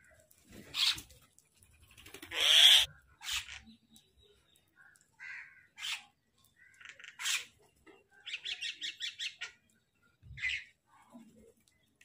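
Mynas calling around a feeding flock: a string of separate short calls, the loudest about two and a half seconds in, and a quick run of about eight notes a second past the two-thirds mark.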